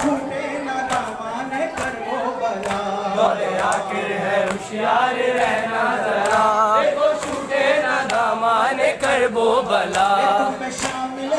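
A nauha, a Shia lament, chanted by a male reciter through a microphone, with other voices joining in. A regular beat of slaps runs under it, fitting matam, hands striking bare chests.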